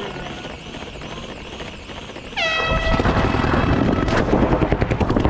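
An air horn blasts about halfway through, one held note of about two seconds that dips slightly in pitch as it starts, signalling the start of a speedball point. Right after it comes rapid popping from paintball markers firing.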